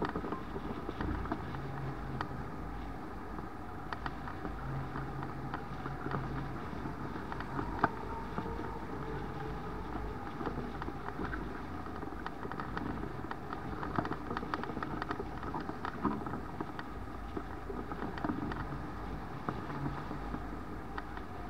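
Steady rush of air over a hang glider in flight, heard as wind noise on the glider-mounted microphone, with scattered small clicks and rattles.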